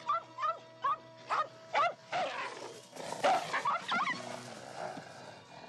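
A quick series of short, high animal yelps, about two or three a second, then a scuffling noise and a second flurry of yelps about three seconds in, during an animal fight, over an orchestral film score that carries on alone near the end.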